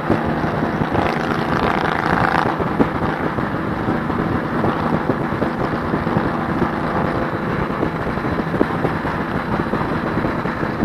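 Motorcycle engine running steadily under way, with wind noise on the microphone.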